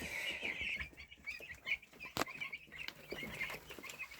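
A flock of young broiler chicks peeping continuously, many short high chirps overlapping, with one sharp click about two seconds in.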